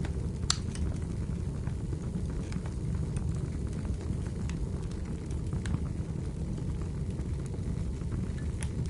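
Wood fire burning in a fireplace: scattered sharp crackles and pops, the loudest about half a second in, over a steady low rumble.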